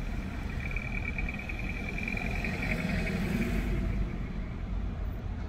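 Street traffic: the steady low rumble of cars and minibus taxis moving slowly in a jam, with a thin high whine for about three seconds and a vehicle passing close about three to four seconds in.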